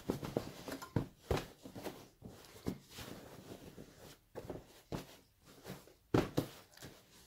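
Stuffed cushion in a cotton dish-towel cover being shaken and handled to settle the stuffing into shape: irregular fabric rustles and soft thumps, with a couple of louder ones near the end.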